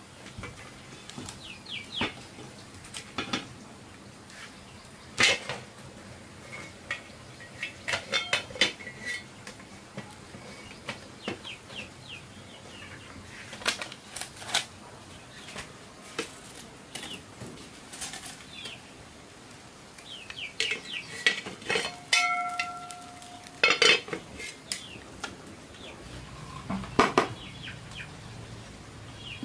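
Metal pots, bowls and utensils clinking and knocking at irregular intervals as food is handled; one knock a little past two-thirds of the way through leaves a brief ringing tone. Birds chirp now and then in the background.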